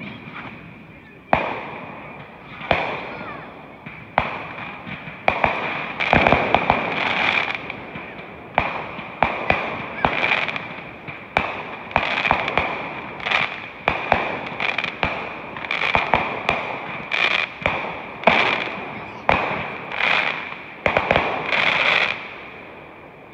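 Aerial fireworks going off in quick succession: about twenty-five sharp bangs, roughly one a second, some in quick pairs, each dying away in echo. A steady high-pitched tone runs underneath.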